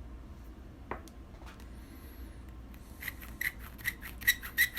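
Hand chamfer and deburring tool scraping the mouth of a freshly trimmed brass .30-30 rifle case. It starts about three seconds in as a quick run of short rasping strokes, several a second, taking the rough edge off the cut.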